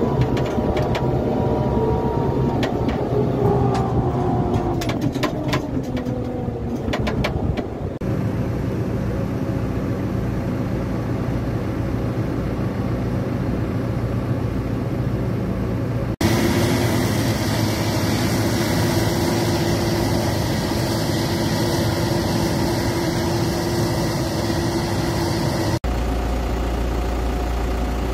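Diesel engines of a farm tractor and a combine harvester running. The pitch falls over the first several seconds, and a steady whine sits over the engine sound for about ten seconds in the middle.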